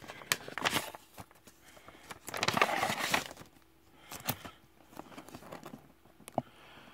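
Plastic trading-card sleeves and rigid top loaders being handled: scattered sharp clicks of plastic against plastic and the tabletop, with a longer crinkling rustle about two to three seconds in.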